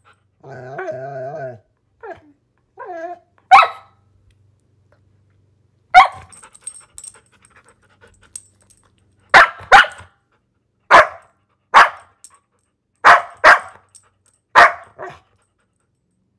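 A dog barking: a short wavering call near the start, then about nine sharp, loud barks spaced a second or two apart, several in quick pairs.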